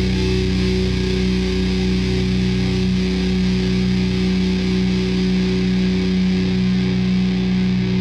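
Background music: a sustained chord holding steady, with a strong low drone.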